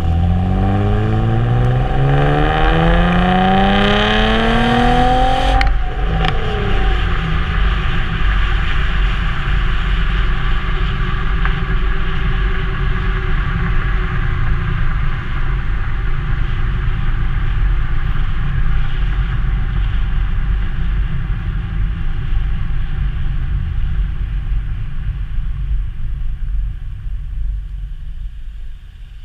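Exhaust of a 2002 Nissan Maxima's 3.5-litre V6, heard at the tailpipe: the engine revs climb steadily under acceleration for about six seconds, then the note drops away sharply. After that comes a steady low exhaust rumble with road noise, slowly fading near the end.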